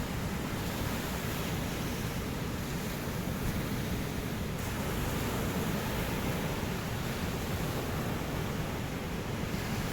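Ocean surf: a steady wash of breaking waves, with no single wave standing out.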